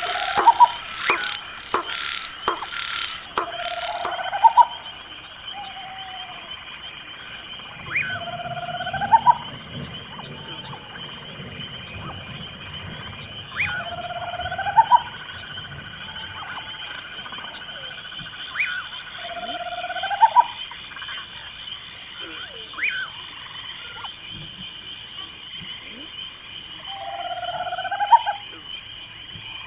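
Night chorus of crickets: a steady high trill, with an animal call, a short note rising in pitch, repeating about every five seconds.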